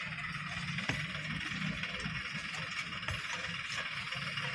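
Low, uneven rumble of distant dump truck diesel engines running, under a steady outdoor hiss, with a few faint ticks.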